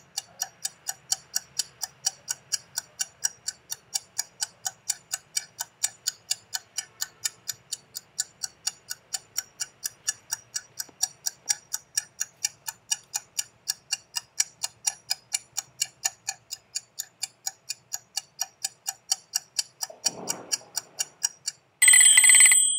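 Countdown timer's ticking sound effect, a fast even ticking as the timer runs down. Near the end the ticking stops and a loud time's-up alarm rings.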